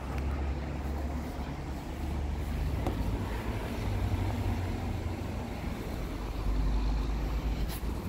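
Goodman central air-conditioner outdoor condensing unit running, giving a steady low hum from its compressor and fan.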